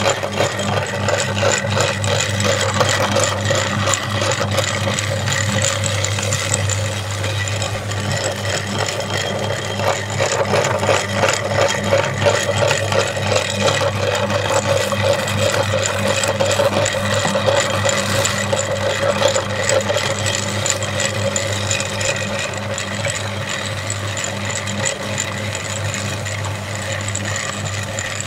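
Large flywheel-driven meat grinder running steadily with a constant low hum, its auger crushing Oreo cookies with a dense rattling crunch.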